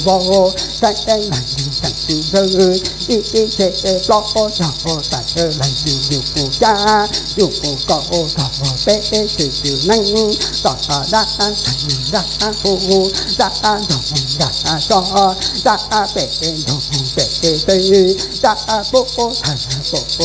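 Hmong shaman's ritual chant, a rapid sung voice, over the continuous shaking jingle of his hand-held metal shaman's rattle and bells.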